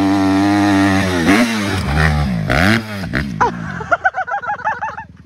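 A Honda CRF150R dirt bike engine revving hard. The note holds steady at high revs, then drops and climbs again several times as the rider shifts and gets back on the throttle. After a cut about four seconds in, a fainter engine note rises and falls in quick blips.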